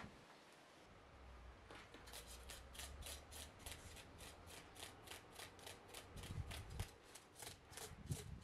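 A large kitchen knife scraping scales off a whole salmon in quick repeated strokes, about three or four a second, starting about two seconds in. A few dull low knocks come near the end.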